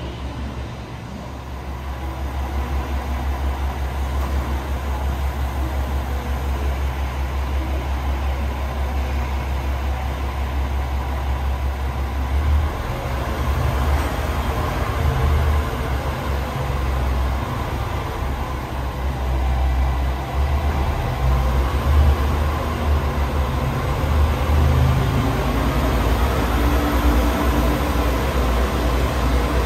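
JR West KiHa 40 and KiHa 47 diesel railcars drawing into the platform: a steady low diesel engine rumble with wheel-on-rail noise, growing louder as the cars roll past.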